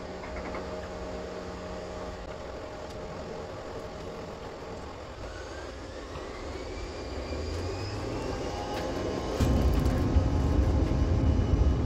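Airliner engines heard from inside the cabin, spooling up for take-off with a whine rising in pitch. About nine seconds in the sound jumps suddenly to a loud, low rumble as take-off power comes on.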